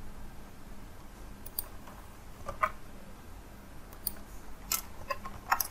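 Scattered, light clicks and taps of a computer keyboard and mouse while code is edited, over a faint steady hum.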